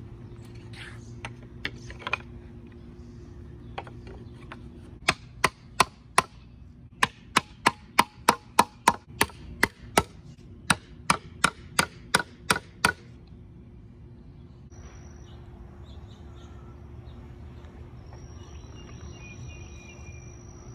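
A mallet knocking a wooden wedge into a workbench's through-tenon: about twenty sharp wooden knocks over eight seconds, some in quick runs of about three a second, after a few light handling clicks.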